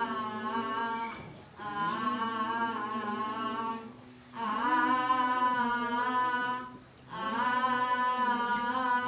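A voice singing a slow, wordless tune in long held notes, in phrases broken by short pauses every two to three seconds.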